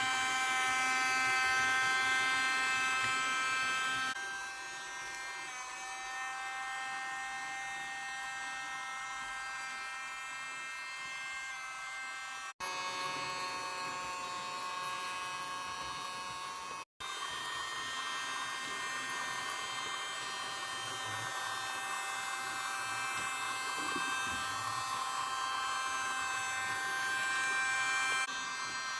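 Small electric motor of a Tomix track-cleaning vacuum car whining steadily as it runs on model railway track, sucking dust and dirt off the rails. The whine drops in level about four seconds in and cuts out abruptly twice for an instant.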